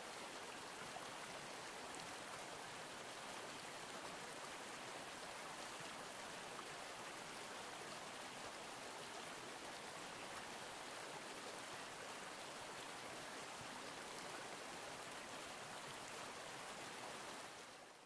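Steady, even rush of a stream's running water, with no birdsong, fading out near the end.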